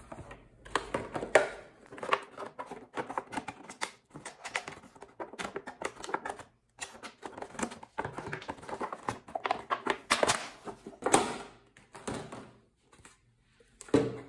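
Cardboard and clear plastic packaging of a small paper trimmer being opened by hand: an irregular run of clicks, crackles and rustles, with louder crinkling bursts about a second in and again around ten seconds in.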